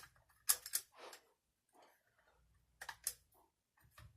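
Light metallic clicks and taps of an AR-15 bolt and headspace go gauge being handled and eased into place by hand. There is a click at the start, a pair about half a second in, and another pair near three seconds.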